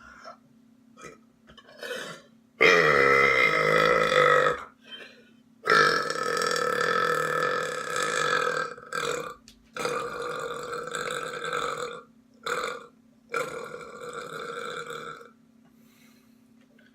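A person belching deliberately: a few faint short sounds, then four long, loud burps of about two to three seconds each, with two short burps in between.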